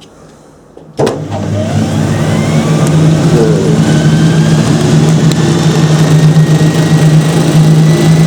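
Hoover Spinarinse 3012A spin dryer switched on about a second in: the motor starts with a sudden jolt and the drum spins up under a load of wet woollens, a rising whine over a loud steady hum. Very noisy.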